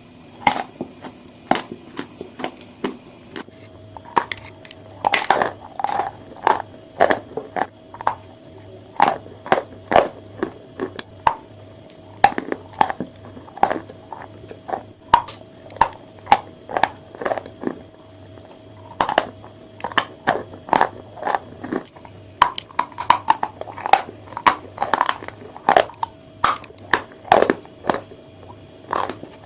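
Chalk being bitten and chewed close to the microphone: irregular sharp crunches, often several in quick succession, with short pauses between bites.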